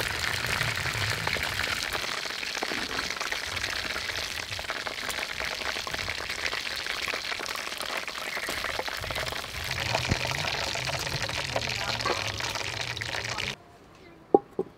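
Chicken drumsticks deep-frying in a wok of hot oil, a steady dense sizzle and crackle. The sizzle cuts off abruptly about a second before the end, and a single sharp metal clink follows.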